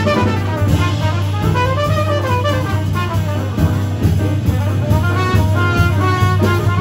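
Small jazz group playing live, a trumpet carrying a flowing melodic line that rises and falls over a walking double bass.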